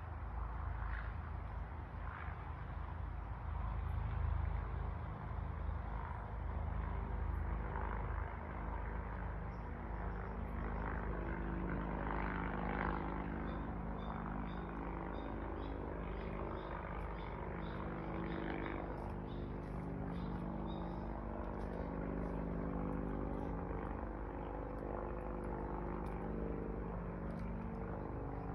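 An engine running steadily under a low rumble, its even drone settling in about a third of the way through.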